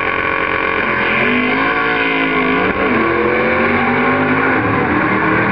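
Two drag-racing muscle cars launching off the line and accelerating hard down the strip. Their engine pitch climbs, drops at a gear shift a little under three seconds in, then climbs again.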